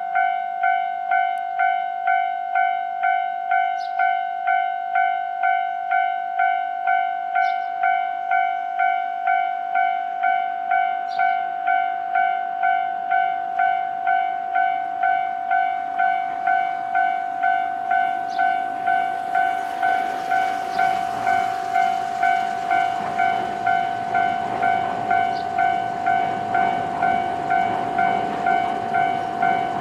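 Japanese railway level-crossing warning bell ringing steadily, an even electronic clang about one and a half times a second. From about two-thirds of the way in, the rumble of an approaching train, the Nankai limited express Southern, builds under the bell and grows louder toward the end.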